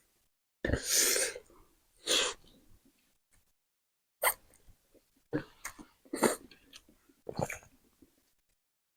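Short breathy mouth sounds from people eating very spicy noodles: sharp breaths and slurps in about seven separate bursts with gaps between.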